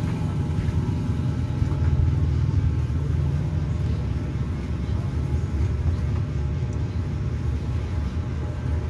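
Steady low rumble of an engine running nearby, even throughout.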